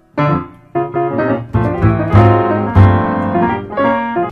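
Piano keys pressed by a dog's paws, giving an irregular run of notes, often several struck together in clusters.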